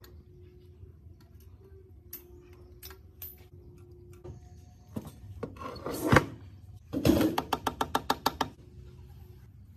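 Metal parts of a rusty antique Mitsubishi sewing machine being handled during disassembly: faint clicks of tools on metal, then a scrape that ends in a loud clank about six seconds in. A clatter about a second later is followed by a quick, even run of about a dozen metallic clicks that fades out.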